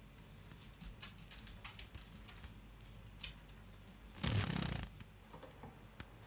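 A zebra finch shaking out its damp feathers after a bath: a brief rustling flurry about four seconds in, lasting about half a second, among faint scattered ticks.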